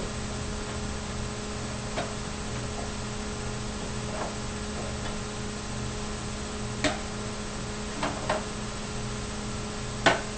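Steady low electrical hum with a few light clicks and taps of parts being handled while a computer is assembled in its case; the clearest clicks come about two-thirds in, a quick pair a little later, and one near the end.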